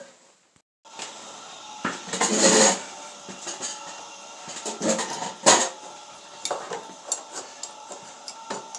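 Steel tools and stock clinking and clattering in a blacksmith's shop, with a louder rattle about two seconds in and one sharp metal strike about halfway through, then lighter clinks, over a steady background hum.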